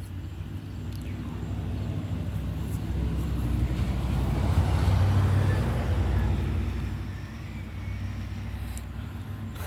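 A car driving past, its road noise swelling to a peak about halfway through and then fading away.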